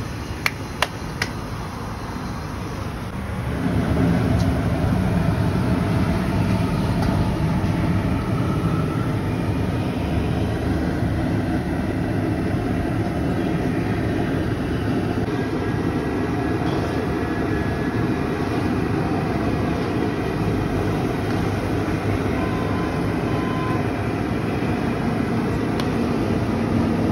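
Steady rushing noise of a gas burner under a large iron kadhai, with the liquid in it boiling hard. It grows louder a few seconds in, and a few sharp clicks come near the start.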